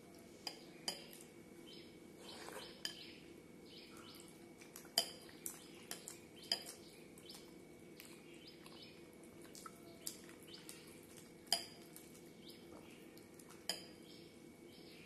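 A hand mashing and scooping milk-soaked bread in a glass bowl, with about ten sharp clinks against the glass, the loudest about five and eleven and a half seconds in, and soft wet eating sounds in between. A steady low hum runs underneath.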